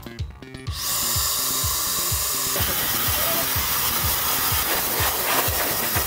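Pet blow dryer (Jellyfish PD100) switched on under a second in, then blowing a steady, loud rush of air. Background music with a steady beat plays underneath.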